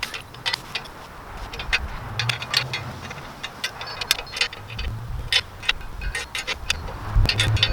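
Sharp, irregular metallic clicking as the height-adjustment bolts on an Alaskan chainsaw mill are worked with a hand tool, with a few low thuds from handling the mill's frame.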